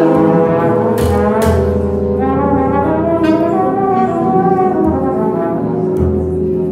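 Brass music: several horns holding long, overlapping notes in chords.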